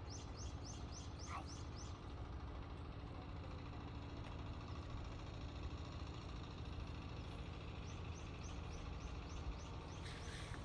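A songbird singing quick runs of short falling notes, about seven in a run, once near the start and again about eight seconds in, over a steady low rumble.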